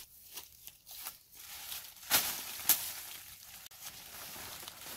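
Dry, dead banana leaves crunching and rustling, with two sharp, loud crunches a little over two seconds in, about half a second apart.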